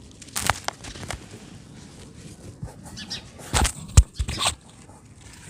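Dry brown dirt crunching and breaking apart: a few crunches about half a second in, then a louder burst of crunching with a sharp snap about four seconds in.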